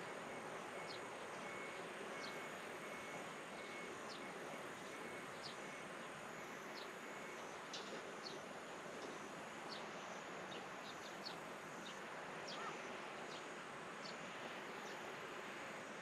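Quiet outdoor evening ambience with insects: an even hiss and a faint steady high whine, with short, high chirps every second or so.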